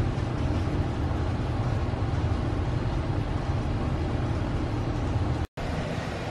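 Diesel engine of heavy construction equipment, an excavator being unloaded from a hauler, running steadily with a low rumble. The sound drops out for an instant near the end.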